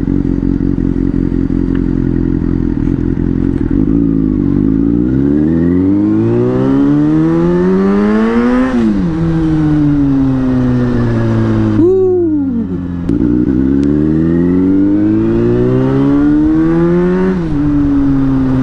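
Superbike engine heard from the rider's seat under way. The revs climb steadily twice as it accelerates, each time falling sharply as the throttle closes and then winding down, with a quick throttle blip in between.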